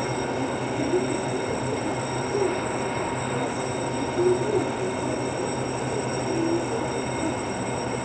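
Stationary EMU800-series electric multiple unit standing at an underground platform, its onboard equipment humming steadily with several high, steady whines above the hum.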